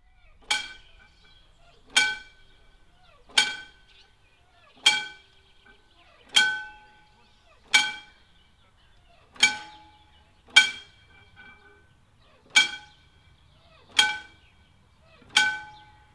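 Mechanical railway crossing warning bell striking in a steady series, about once every second and a half. Each strike rings briefly with several clear tones before dying away: the crossing's warning that a train is coming.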